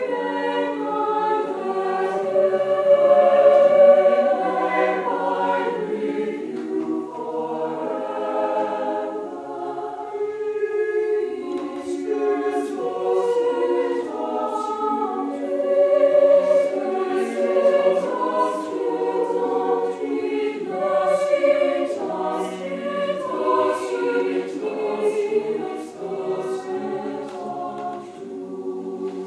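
A choir singing, many voices holding overlapping sustained notes.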